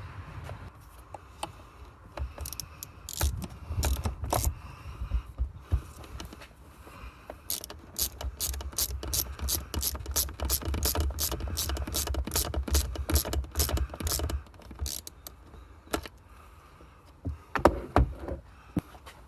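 Hand-tool work on a car engine's vacuum line repair: scattered clicks and knocks, with a dense run of rapid ratchet-like clicking, several a second, through the middle.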